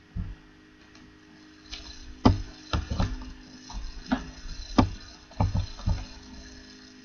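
Irregular clicks and taps of a computer keyboard and mouse: one click right at the start, then about a dozen in quick, uneven succession from about two seconds in.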